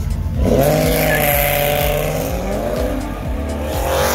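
A car accelerating hard past a roadside crowd, its engine revving up with its tyres squealing. It starts suddenly about half a second in, and there is a second surge near the end.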